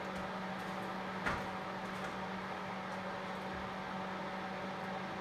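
Steady machine hum with one short knock about a second in.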